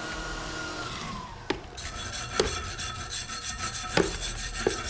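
Wire brush scrubbing a freshly MIG-welded steel plate to clean off the weld: fast, rasping strokes of metal bristles on steel, broken by a few sharp knocks. In the first second a steady machine whine slides down in pitch and fades.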